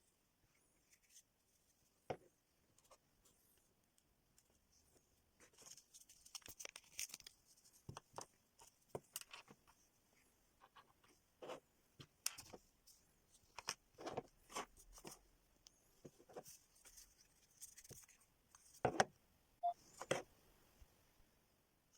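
Earbud box and packaging being handled: soft rustling and tearing of paper and plastic with scattered clicks and taps, the loudest a pair of clicks near the end.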